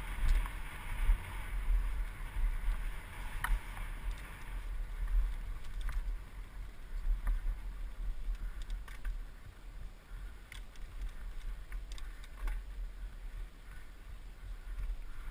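Mountain bike rolling down a dirt forest trail, heard from a helmet camera: a gusty low rumble of wind and ground vibration, with scattered light clicks and rattles from the bike over rough ground.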